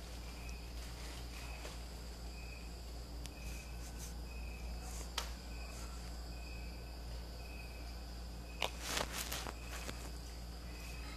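Faint cricket chirping: short high chirps repeated evenly about every two-thirds of a second. A sharp click comes about halfway through, and a louder burst of clicks and rustling comes about three quarters of the way in.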